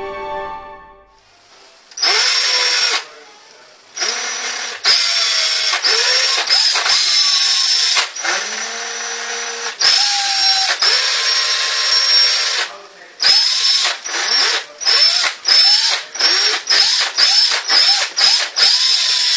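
Electric drill whirring in stop-start bursts of varying length, its motor spinning up and winding down with each pull of the trigger. In the last few seconds the bursts come short and quick, about two a second.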